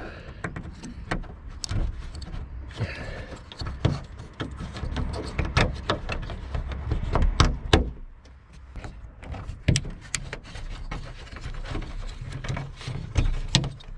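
Irregular clunks, clicks and knocks of car body parts being handled and pushed into place, over a low rumble.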